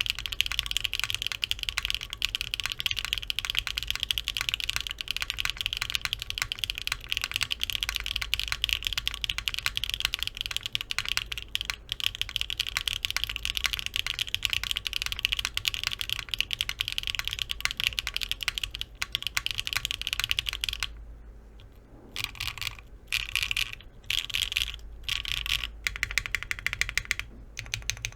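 Typing on a Neo65 gasket-mounted keyboard with a polypropylene plate, Hyacinth v2u switches and doubleshot keycaps. The keystrokes come in a fast, dense stream, and about twenty seconds in they break into short bursts with pauses between.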